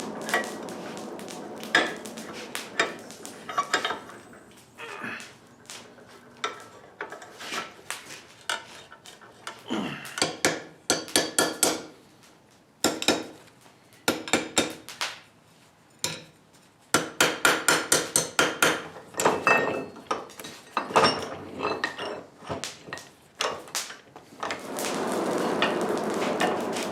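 Blacksmith's hammer striking metal on an anvil in irregular runs of blows, with a quick run of about five or six blows a second in the middle. A steady rushing noise is heard near the start and again near the end.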